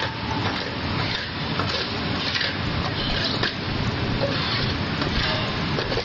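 Steel shovel scraping into and scooping broken concrete rubble: several short, gritty scrapes at uneven intervals over a steady background noise.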